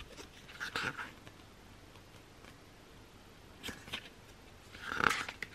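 Pages of a thick album photo book being turned by hand: a few short paper swishes and rustles, the loudest near the end.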